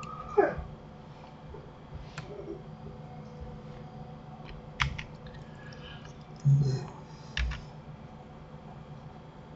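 Scattered clicks of a computer mouse and keyboard over a steady low hum. There are two brief louder sounds: one falling in pitch about half a second in, and a low, pitched one a little after six seconds.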